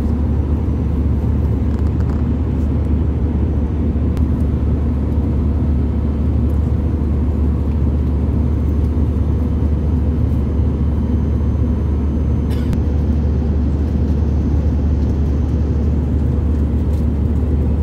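Steady low rumble of an Airbus A320-200's passenger cabin: engine and air-conditioning noise heard from a seat, unchanging throughout.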